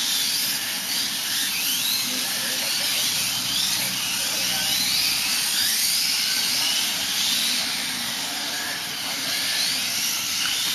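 The electric motors of several 1/8-scale Kyosho Hang-On Racer RC motorcycles are whining, their pitch rising and falling again and again as the bikes speed up and slow down around the track. A steady hiss lies under them.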